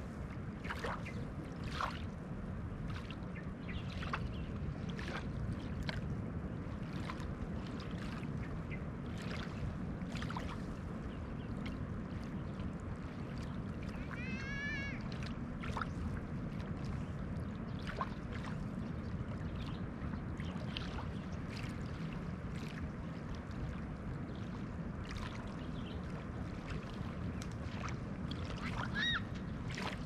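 Small waves of a calm sea lapping at the shoreline: a steady low wash with many little splashes. A bird calls once about halfway through and briefly again near the end.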